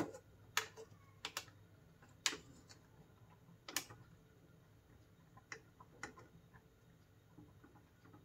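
Metal ladle knocking and scraping against an aluminium cooking pot while stirring: a series of light, irregular clinks.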